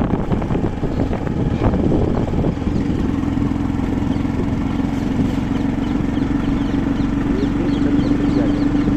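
An engine running steadily, with a steady hum that comes in more strongly about two and a half seconds in.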